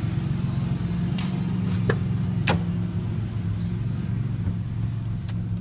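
Ford Ranger's V6 with a straight-pipe exhaust idling steadily, with a few sharp clicks over it.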